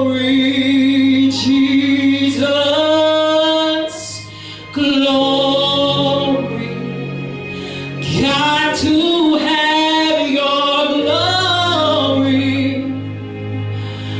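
Slow gospel worship song: a woman sings long, held notes over sustained accompaniment chords.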